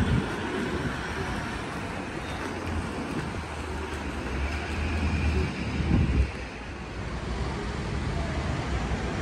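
Street ambience: a steady low rumble of traffic with wind buffeting the microphone, swelling briefly about six seconds in.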